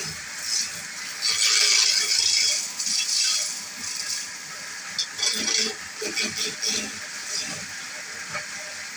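Chisel cutting wood spinning on a lathe: hissing scrapes in bursts, the longest about a second in and lasting about two seconds, with scattered rattling knocks.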